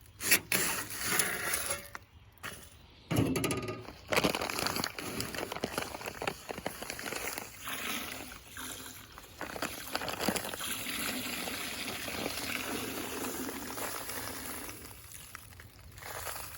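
Dry Sakrete sand topping mix being poured from its bag into a bucket of water, a rough, steady pouring hiss. Handling rustles and knocks come in the first few seconds.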